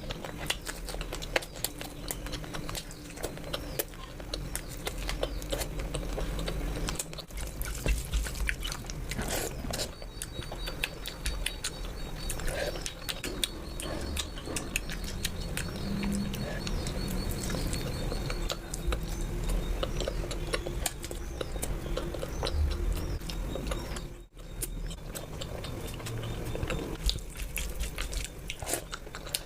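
Close-miked eating sounds: wet chewing and mouth smacking made up of many small clicks, running on without a pause except for one brief break near the end.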